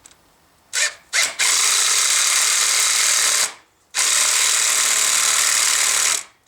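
Power drill spinning in short runs, driving the screws of worm-gear hose clamps tight on a high-temperature hose joined to an EGR tube: two brief blips about a second in, then two steady runs of about two seconds each with a short pause between.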